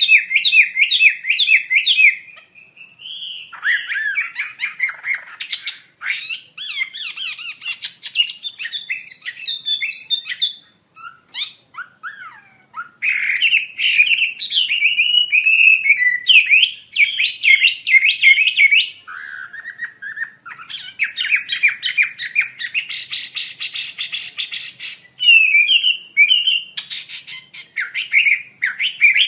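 Chinese hwamei singing a long, varied song of rapid whistled phrases and trills, one phrase running into the next with only brief pauses.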